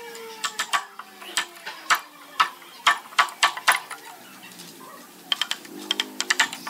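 Wooden mallet striking a wood chisel to chop a mortise into a hardwood panel: sharp, irregular knocks about two to three a second, turning into a quicker run of lighter taps near the end.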